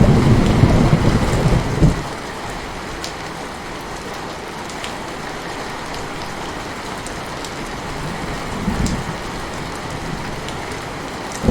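Heavy rain falling steadily, with scattered sharp drop ticks. A loud rumble of thunder at the start breaks off abruptly about two seconds in, and a fainter rumble comes near the end.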